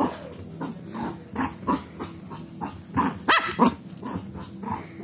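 Shih Tzu barking and growling in a run of short yappy barks, the loudest pair a little after three seconds in, with low growling between them: an angry, agitated small dog.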